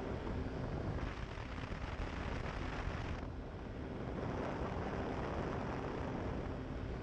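Pterodactyl Ascender II ultralight's engine running steadily, with wind rushing across the microphone that swells and eases twice.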